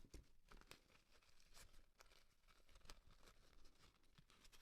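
Near silence with faint rustles and a few soft clicks as a small fabric jumpsuit is pulled over a model figure's shoulder by hand.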